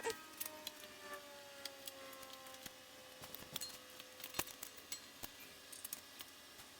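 Light metal clicks and taps from hand tools and parts during work on a bicycle's front fork and axle, irregular and a few each second, with the loudest tap about four seconds in. Under them a faint ringing tone sinks slowly in pitch.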